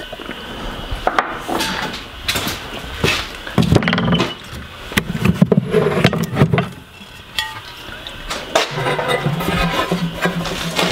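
Household objects being handled: bottles, tools and metal gear clink and knock as they are moved about a shelf and a large aluminium pot. A steady low hum sits under it for much of the time.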